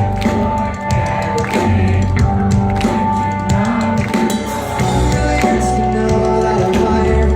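Live pop-punk band playing loud, with a steady drum beat under sustained guitar and bass.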